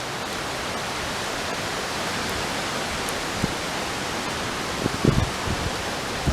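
Strong wind rushing steadily through trees during a hurricane, with a few low buffets of wind on the microphone about five seconds in.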